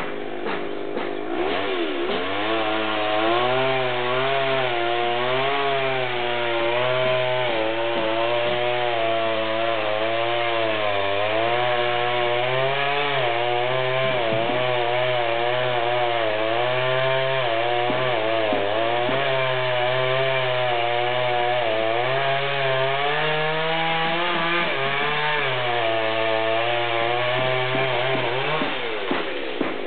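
Chainsaw cutting into wood, its engine revving up about a second and a half in and then running at high speed, the pitch wavering up and down as the chain bogs in the cut and recovers. Near the end the revs fall away.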